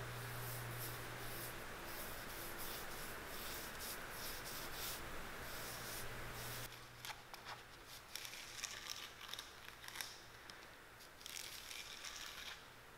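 Faint scratchy rubbing as a dauber spreads dye along a leather welt strip on a glass bench top, over a steady low hum. About seven seconds in the hum stops, and light scratchy ticks and rustles follow as welting thread is pulled off a spool.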